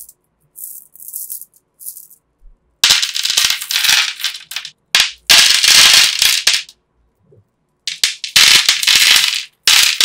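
Small pebbles rattling and clattering as they are shaken in the hands and poured onto a hard surface, in several bursts: a few short ones near the start, then longer loud ones about three, five and eight seconds in.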